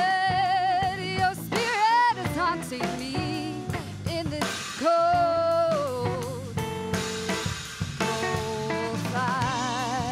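Live indie rock band: a woman sings long held notes with vibrato into a microphone over drum kit, bass and guitar.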